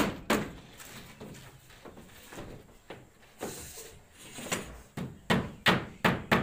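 Hammer blows on wooden formwork for a concrete roof slab, nailing the plywood shuttering sheets down: sharp knocks on wood, two loud ones at the start, a few fainter ones, then a run of about five quick strikes near the end.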